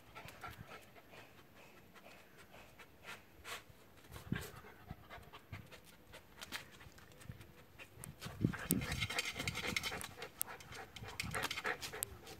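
Jack Russell terrier sniffing hard for a lizard, with many quick short sniffs and breaths. The sniffing grows louder and denser about eight seconds in, as the dog presses its nose to the base of a flower pot.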